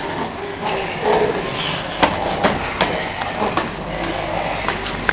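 Hands and feet slapping and scuffing on a hard floor as several people scramble on all fours, with a handful of sharp knocks from about two seconds in.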